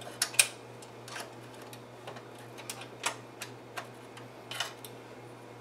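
Irregular light clicks and taps of a PC case's metal expansion-slot retaining plate and card brackets being worked into place by hand, a plate that will not seat properly. The two loudest clicks come close together about half a second in.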